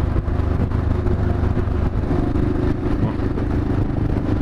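Yamaha XT 600E motorcycle's single-cylinder engine running steadily while cruising on the highway, with an even rush of noise over it.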